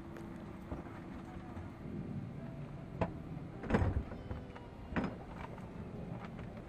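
Steady low hum inside a parked airliner's cabin, with a few sharp knocks and one louder, deeper thud a little under four seconds in.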